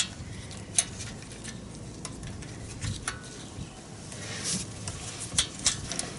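Scattered sharp clicks and light taps of small parts being worked by hand as a carburetor's throttle linkage is unhooked, with a brief rustle about four and a half seconds in.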